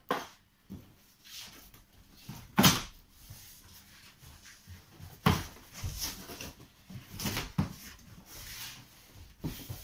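Cardboard bicycle box being pulled open by hand: a series of sharp scrapes and knocks of the cardboard flaps, the loudest about two and a half seconds in.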